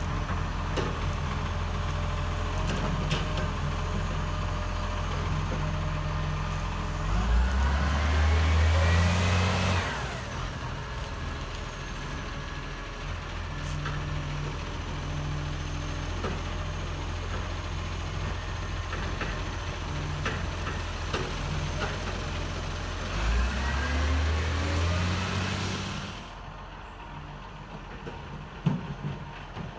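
Side-loader garbage truck's diesel engine idling, speeding up twice with a rising whine, about a quarter of the way in and again near the end. This is the revving that works the hydraulic bin-lifting arm. Near the end the truck is farther off and quieter, with a few sharp clicks.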